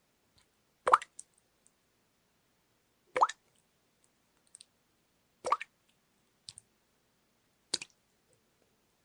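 Water dripping: four drops land a little over two seconds apart, each a sharp plop followed by a fainter small splash.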